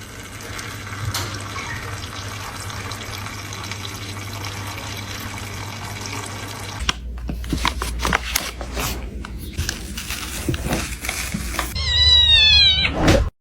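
A house cat meows, one loud drawn-out meow near the end. Before it, a steady hiss for several seconds, then scattered knocks and clicks.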